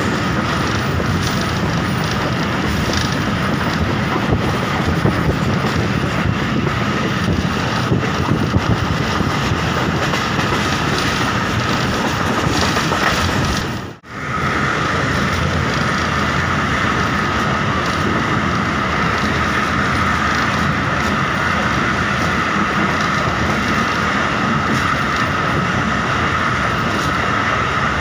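Passenger train running, heard from an open carriage window: a steady rumble of wheels on the rails with some clatter and clicks. The sound cuts out for a moment about halfway, and after that a steady high-pitched whine in the running noise is stronger.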